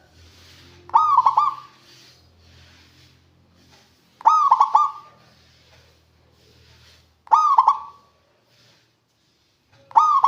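Zebra dove (perkutut) calling: four short cooing phrases, each a quick run of three or four notes, repeated about every three seconds.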